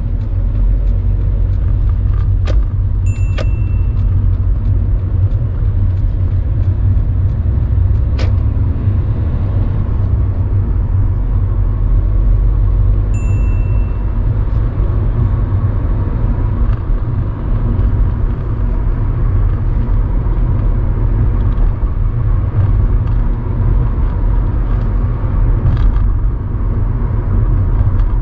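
Steady low rumble of engine and road noise inside a moving car's cabin. A few sharp clicks and two short high beeps sound over it, one a few seconds in and another about ten seconds later.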